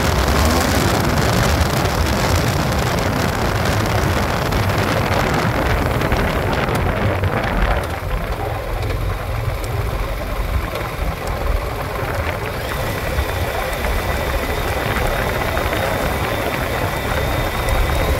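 Motorcycle engine running while riding an unpaved gravel track, with wind and tyre noise over the microphone; the hiss eases about eight seconds in.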